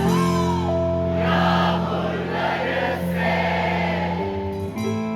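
Live band music with long held notes, and many voices singing together.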